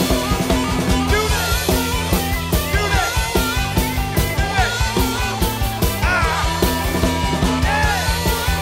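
Live rock band playing: drum kit keeping a steady beat under electric guitars and bass, with a harmonica wailing bent notes over the top.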